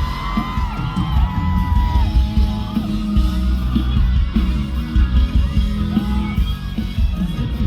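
Live band playing a pop-rock song with a male voice singing over it and members of the crowd shouting and cheering along.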